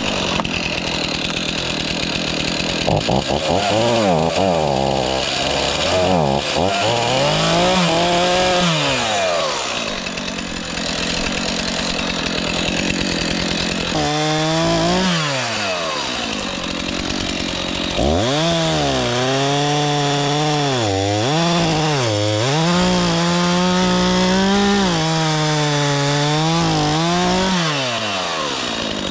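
Two-stroke chainsaw running and cutting, its engine revving high and dropping back several times as it bites into wood and comes free.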